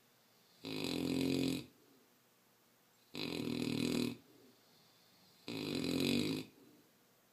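An 11-month-old mastiff puppy snoring in its sleep: three snores about a second long each, coming roughly every two and a half seconds with quiet between.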